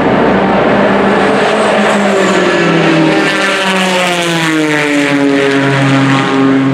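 Race car passing at speed, its engine note rising as it approaches and then falling in pitch as it goes away, over a steady lower engine drone.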